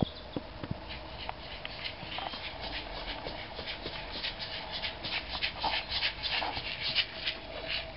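A pair of maracas shaken in short, irregular rattling strokes, sparse at first and then quicker and louder from about two seconds in.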